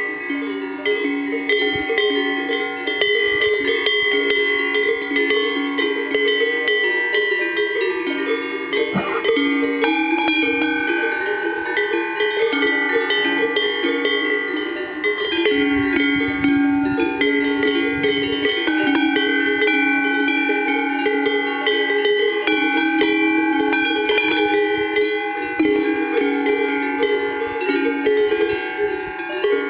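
Swiss cowbells worn by a herd of cows, clanging continuously, with many bells of different pitches ringing over one another.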